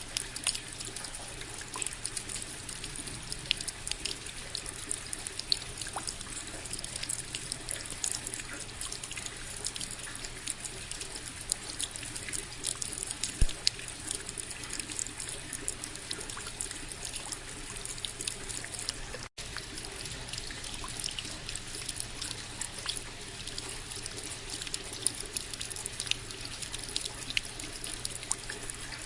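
Steady rain falling, with many close individual drops ticking and a trickling of water. The sound cuts out for an instant about two-thirds of the way through.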